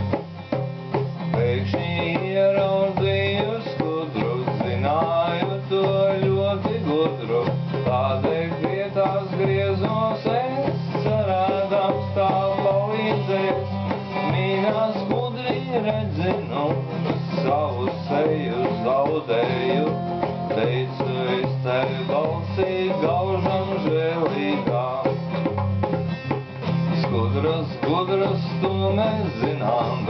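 A guitar played continuously: a long passage of a song without clear singing.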